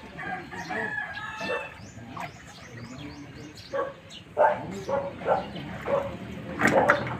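A rooster crows once, a call of about a second and a half near the start. Later comes a string of short, sharp sounds, the loudest near the end.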